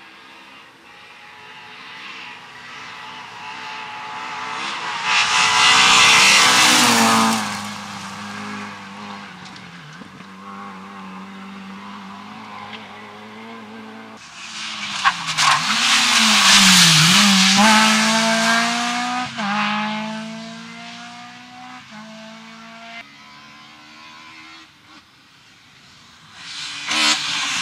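Rally car engines at full throttle on a gravel stage, with gravel and tyre noise. One car's engine rises to a loud pass after about five seconds. A second loud pass comes about halfway through, where the revs dip and climb in steps through several gear changes as the car pulls away. Near the end another car starts approaching.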